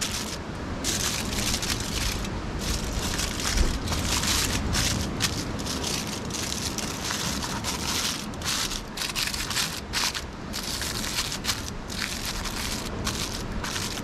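Tin foil being folded and crumpled around fish fillets to wrap them, a dense crinkling with irregular sharp crackles.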